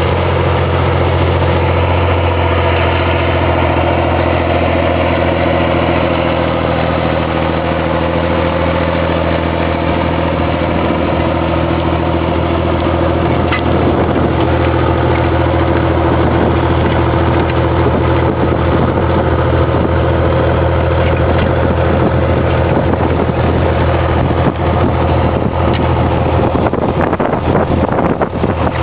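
Vintage John Deere tractor engine running steadily with an even, unchanging note, with a few faint knocks near the end.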